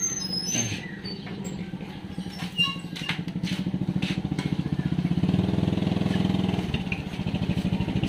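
A motorcycle engine running close by with a rapid, even putter, growing louder about five seconds in and easing off again shortly before the end.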